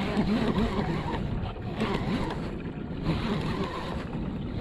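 Wind on the microphone and sea water against a kayak, with a Sougayilang round conventional fishing reel being cranked to bring in line, a low whir that pulses a few times a second.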